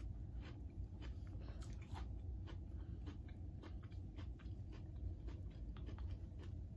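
Crisp green apple slices being chewed: a quick, irregular run of small crunching clicks over a low steady hum.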